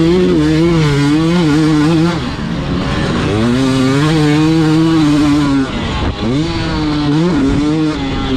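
Two-stroke enduro dirt bike engine ridden hard on throttle. It holds a steady high rev for about two seconds, then backs off. It pulls again for a couple of seconds and backs off again near the middle, then gives several quick throttle blips toward the end.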